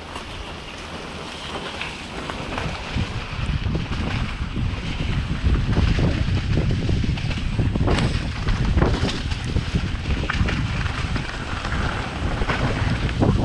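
Wind buffeting an action camera's microphone on a mountain bike descending a dirt trail, with the low rumble of the ride and scattered sharp knocks as the bike goes over the rough ground. The rush grows louder about four seconds in as speed picks up.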